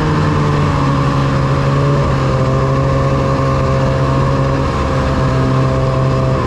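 Snowmobile engine running loud and steady at trail-riding speed, heard from the rider's own sled, its pitch easing slightly about two seconds in.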